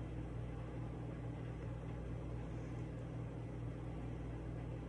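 Steady low hum with an even hiss: room tone in a kitchen, with no distinct events.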